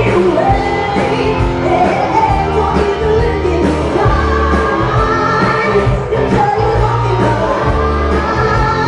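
Live band music with a woman singing lead into a microphone over bass and drums.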